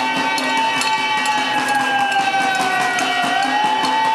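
Music: a wailing, siren-like tone that swoops up and then slowly sinks, repeating about every four seconds, over steady held notes and clicking percussion.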